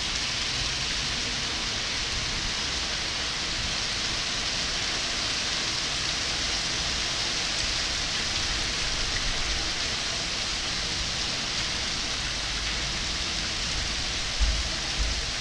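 Heavy rain pouring steadily onto pavement and parked cars in a strong storm. A couple of short low thumps come near the end.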